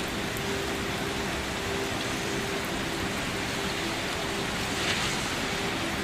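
Steady rain falling on a surface, an even hiss with a brief louder splash about five seconds in.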